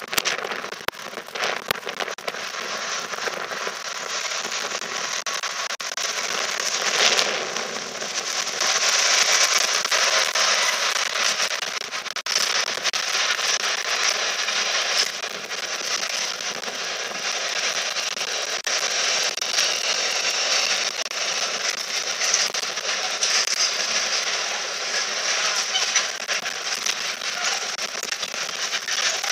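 Freightliner Class 66 diesel locomotive passing with a container freight train, followed by the wagons rolling by with a steady rush of wheel and rail noise and many sharp clicks and clatters. The noise swells as the locomotive goes by, about seven to eleven seconds in.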